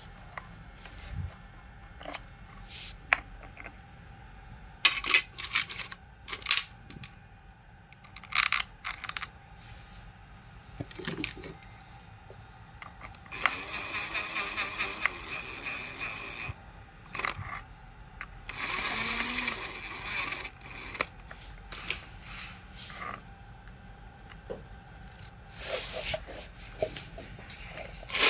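Small metal parts and hand tools clicking and clinking on a workbench while a rotary hammer is worked on, with two stretches of hiss, about three seconds and then two seconds long, in the middle.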